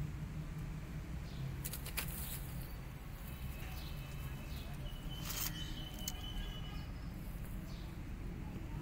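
Outdoor background noise: a steady low hum with a few short clicks and faint high chirps, one held for about two seconds in the middle.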